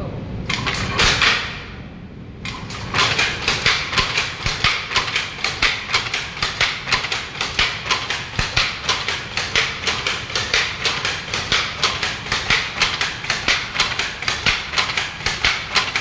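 Shuttle loom starting up a couple of seconds in, then running with a steady clacking of about three sharp strikes a second, the rhythm of the shuttle being picked across and the reed beating up.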